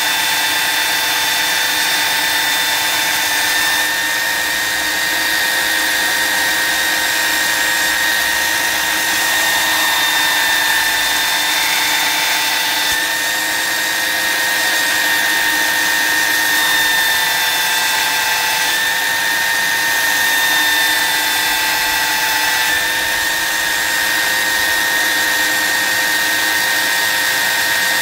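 Belt sander running steadily while a steel knife blade cut from a circular saw blade is held against the moving belt and ground, a high motor whine over a grinding hiss. The pitch drops slightly a few times as the blade is pressed in.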